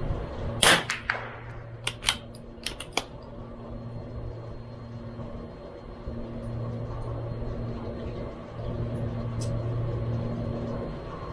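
A single .22LR shot from a CZ 457 MTR bolt-action rifle, a sharp crack with a short ring-off under a second in. Between two and three seconds in come about five quick sharp clicks as the bolt is worked to eject and chamber the next round. A steady low hum runs underneath.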